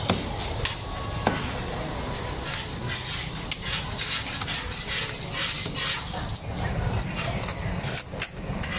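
Clatter of kitchen utensils and dishes at a food stall: many sharp clicks and knocks over a steady background din.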